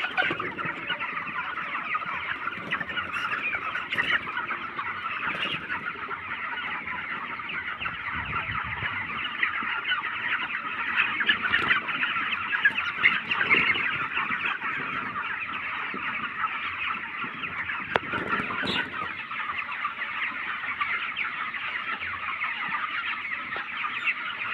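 A large flock of 25-day-old broiler chickens calling in a dense, unbroken chorus of overlapping chirps and clucks, with a few louder calls standing out now and then.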